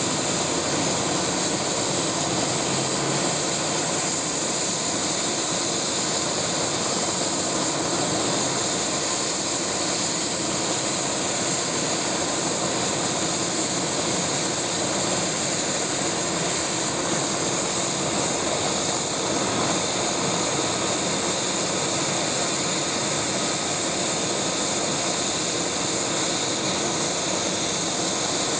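Eurocopter EC-145 (MBB BK117C-2) helicopter running steadily on the ground, its twin turboshaft engines giving a constant high whine over a broad rushing noise.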